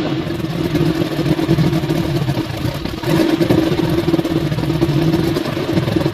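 Mercury 140 hp inline-six two-stroke outboard running steadily at low speed, a little louder about halfway through.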